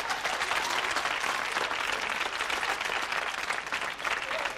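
Live studio audience applauding: a dense, continuous clapping of many hands.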